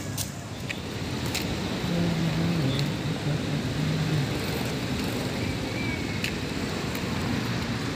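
Outdoor ambience: a steady low rumble of distant traffic and wind on the phone's microphone, with faint far-off voices.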